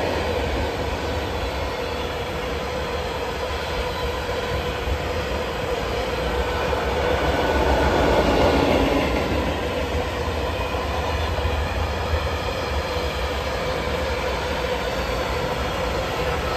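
Freight train of tank wagons rolling past on the rails: a continuous rumble of steel wheels on track, with a thin steady tone running through it and a slight swell about halfway through.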